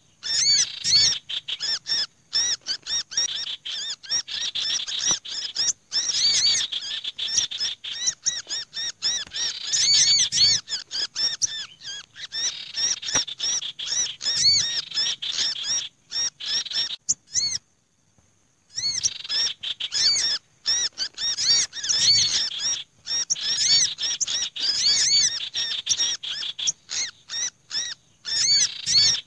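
Bird-lure recording for small birds: a dense, busy mix of a common iora's harsh chattering, an olive-backed sunbird's noisy twittering and a black-naped monarch's calls, laid together to sound like agitated birds with one caught ('kejepit'). High chirps and trills follow one another, with a break of about a second a little past the middle.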